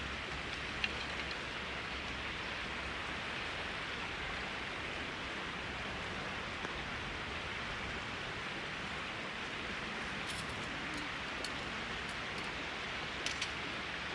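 Steady rush of flowing river water, with a few faint clicks about a second in and again near the end.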